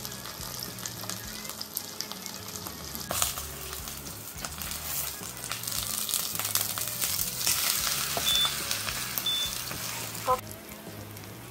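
Cabbage pancake (baechu-jeon) frying in oil in a pan: a crackling sizzle that grows louder about three seconds in and drops off sharply near the end.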